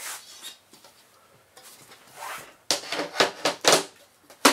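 The aluminium side panel of a 2009 Mac Pro being fitted back onto the case: a soft scrape, then a quick run of metal clatters and knocks over the last two seconds as it is set in place, the loudest right at the end.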